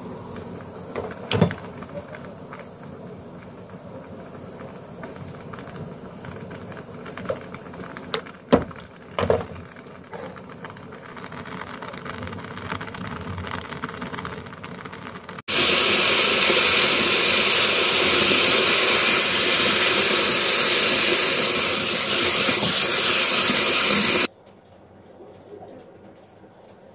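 Pot of noodles bubbling at the boil, with a few sharp clicks and knocks. Then a loud, steady rush of running water for about nine seconds that starts and stops abruptly: the cooked noodles being rinsed in cold water to firm them up.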